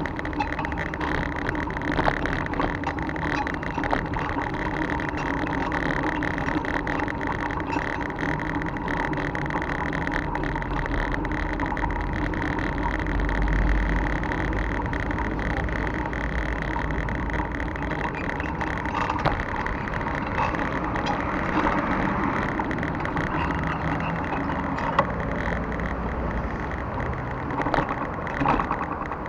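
Bicycle being ridden on a city street: a steady rolling rush with frequent small clicks and rattles from the bike.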